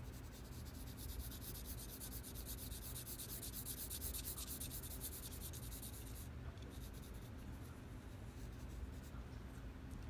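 Coloured pencil shading on art paper: quick, light back-and-forth scratching strokes that ease off about six seconds in, leaving only a few faint strokes.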